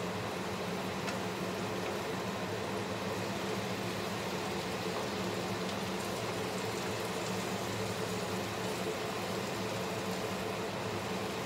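Steady hum of a kitchen range-hood fan, with chicken pieces sizzling in a frying pan as a wooden spatula stirs them.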